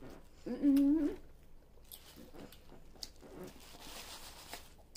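A short held vocal hum of enjoyment from someone eating watermelon, about half a second in, followed by quieter mouth sounds of eating and a faint crinkle of the plastic bag under the fruit.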